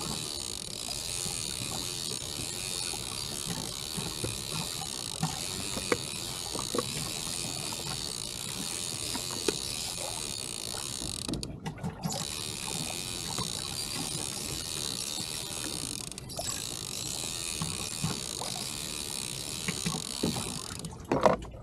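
Fishing reel running with a steady mechanical whir and scattered light clicks, cutting out briefly about halfway through.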